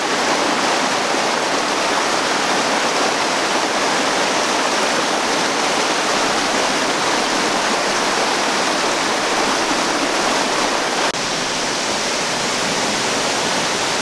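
Waterfall: water pouring in thin streams down a steep rock face and splashing into a pool, making a steady rushing hiss. The level steps down slightly about eleven seconds in.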